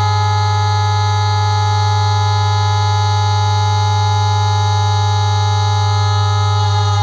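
Siren sounding a loud, steady held tone, several pitches stacked into a dense drone over a strong low hum.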